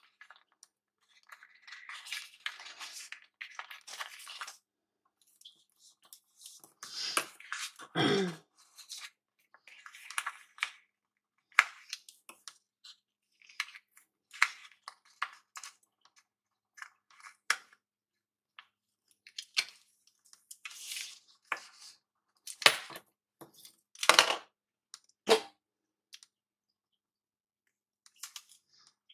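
Washi tape being pulled off its roll, torn and pressed onto paper planner pages: short, irregular rustles and tears with a few sharp taps.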